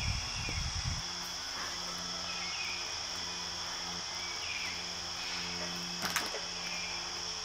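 Crickets and other insects trilling in a steady, unbroken chorus, with a sharp click about six seconds in.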